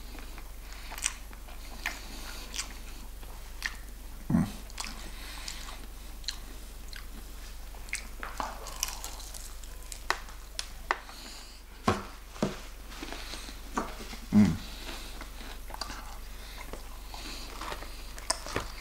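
Chewing and biting into crispy KFC hot honey fried chicken, with many short, sharp crunches scattered throughout and two heavier low thumps about four and fourteen seconds in.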